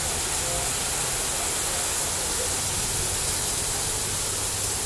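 Heavy tropical rain falling steadily: a dense, even hiss of the downpour.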